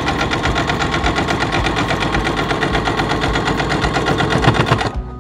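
Domestic electric sewing machine stitching steadily at speed, a rapid, even rattle of the needle mechanism, then stopping suddenly near the end.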